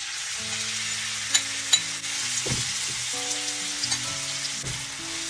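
Small cubes of marinated chicken frying in oil in a pan, with a steady sizzle. Two sharp clicks come about a second and a half in.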